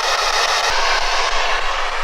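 Ghost-box device giving out loud, steady static hiss, the sound it makes while it sweeps for spirit voices.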